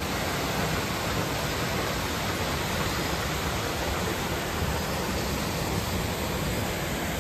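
Steady rush of flowing water from a mountain stream or waterfall, an even hiss with no breaks.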